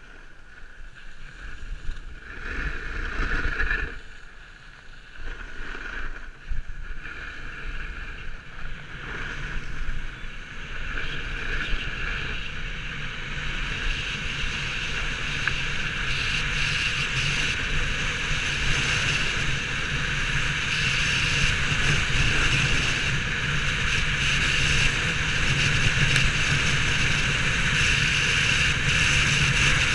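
Snowboard sliding and carving on packed snow, with wind rushing over the microphone; the rushing is uneven for the first ten seconds or so, then grows steadily louder as speed picks up.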